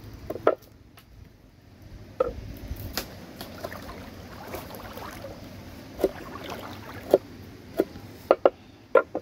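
Large kitchen knife chopping garlic and chili on a wooden board: sharp knocks of the blade striking the wood, unevenly spaced, roughly one a second, with a quick pair near the end.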